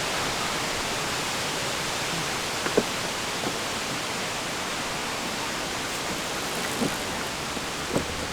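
Steady hiss of background noise, with a few light clicks and knocks of a plastic air-filter housing cover being handled and fitted back in place.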